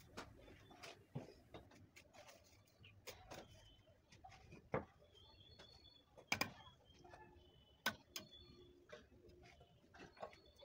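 Scattered clinks and taps of a steel trowel and clay bricks as bricks are set and pressed into wet cement mortar, the loudest knocks about six and a half and eight seconds in. Birds call faintly in the background.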